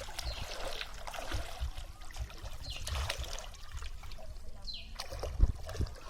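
Water trickling and splashing in uneven surges, with a few short high falling calls and a low thump near the end.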